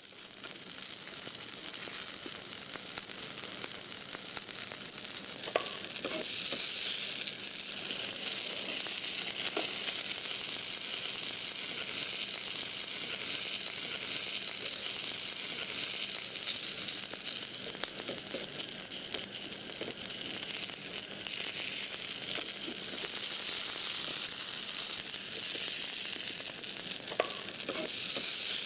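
Food sizzling in a frying pan: a steady hiss of hot oil with fine continuous crackling and occasional louder pops.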